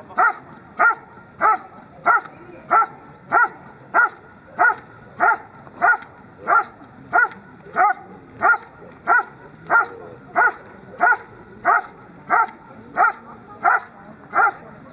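A German Shepherd Dog barking steadily and evenly, about three barks every two seconds, at a helper standing in a hide. This is the hold-and-bark (Stellen und Verbellen) exercise of the protection phase.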